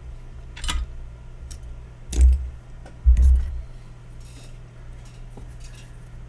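Small tools being handled on a workbench: three clunks, the second and third louder, with a few light ticks, over a steady low hum.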